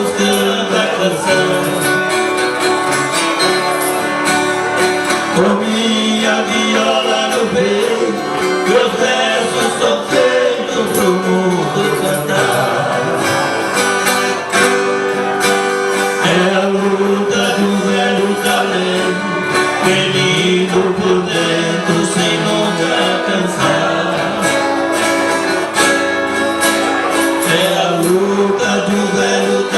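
Live music: a plucked-string accompaniment with singing, the melody moving in long held notes.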